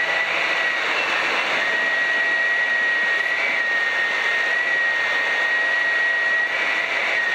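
Cabin noise of a Piper PA-12 Super Cruiser in flight: the piston engine and propeller running steadily together with airflow over the cabin, with a steady high whine running through it.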